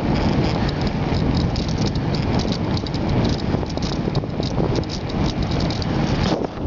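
Wind noise on the microphone of a camera riding on a moving bicycle, with a low rumble and a busy, continuous rattle from the bike and its camera mount.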